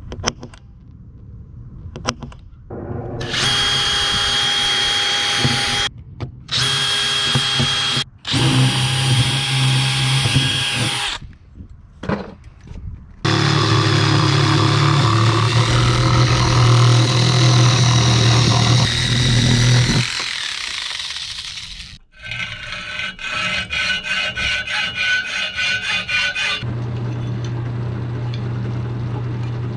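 Electric drill boring holes through aluminum composite camper wall panel, in several runs of a few seconds each that start and stop abruptly, each a steady whine. Near the end a benchtop drill press runs with a steady low hum.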